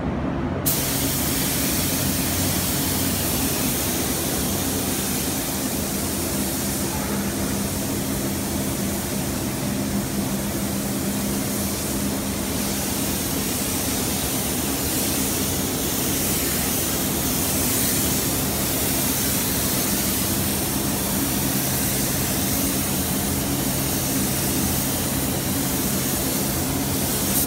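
Compressed-air paint spray gun hissing steadily as it sprays paint, starting about half a second in, over a steady low machine hum.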